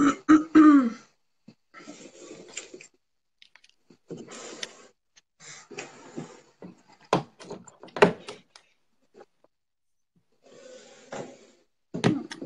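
Handling noise from equipment being adjusted close to the microphone: rustling, with sharp knocks about seven, eight and twelve seconds in. A short falling vocal sound comes right at the start.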